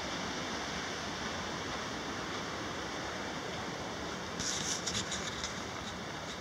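Steady rushing of a mountain creek, with a short run of footsteps on the dirt trail about four and a half seconds in.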